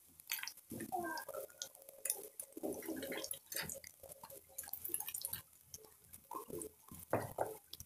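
Onion, garlic and ginger paste sizzling in hot oil in a kadhai, with irregular crackles and pops as it fries toward golden brown. A few short pitched sounds come in faintly behind it.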